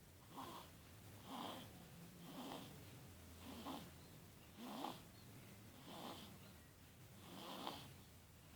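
Newborn baby snoring: faint, noisy breaths, about one a second.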